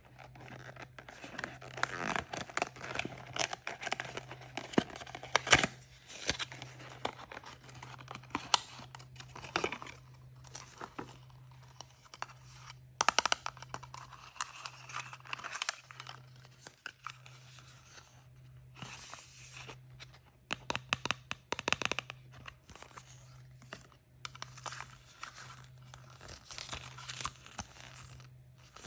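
Packaging being torn open and crinkled by hand while unboxing surprise eggs, with irregular crackling, rustling and sharp clicks and taps, over a faint steady low hum.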